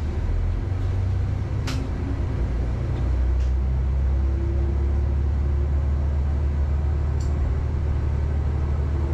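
Isumi Railway diesel railcar running along the line, a steady low engine and running rumble, with a few faint sharp ticks from the track.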